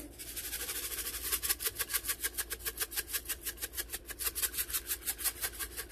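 Dried minced onion rattling in a plastic spice shaker that is shaken rapidly and evenly, about seven shakes a second, stopping near the end.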